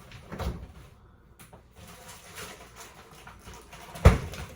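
Kitchen handling noises: a soft knock near the start, faint rustling, then a sharp thump about four seconds in as something is set down.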